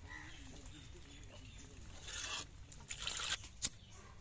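Water sloshing and splashing in a steel bowl as hands wash fish pieces, in short bursts after about two seconds. A single sharp click near the end as a lighter is struck.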